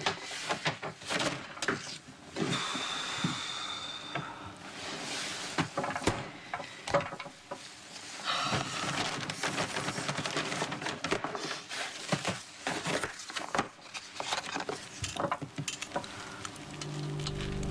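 Rustling of a brown paper lunch bag and its contents as food is taken out and unwrapped, with scattered small knocks and clicks of things being handled and set down. Music comes in near the end.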